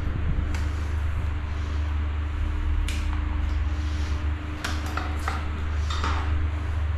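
A few sharp metallic clicks and clinks, some ringing briefly, as a caulking gun and aluminium trim strip are handled and set down on a tiled floor. Most come in a cluster about five seconds in, over a steady low hum.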